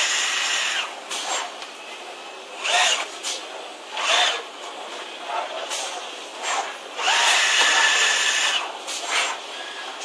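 Han Jie HC-250LR CNC tube bender working through a bending cycle: short spells of motor whine and hiss as it feeds, clamps and bends the tube. The longest spell comes about seven seconds in and lasts a second and a half.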